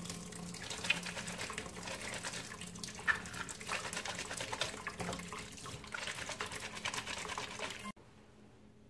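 Tap water running into a stainless steel sink while a sock is scrubbed and squeezed by hand in soapy water, with small irregular splashes. The sound cuts off suddenly about eight seconds in.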